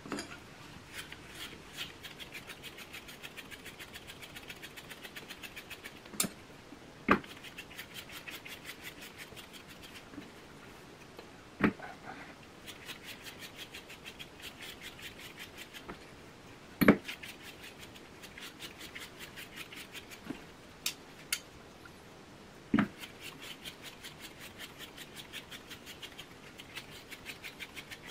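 Quick, even strokes of a slicker brush raking through a West Highland White Terrier's harsh coat, coming in runs, with several sharp knocks in between.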